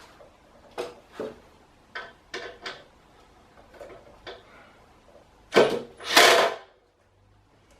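Wooden knocks and bumps from workbench timber being handled and set in place, a few short sharp knocks, then two louder, longer noises a little past halfway.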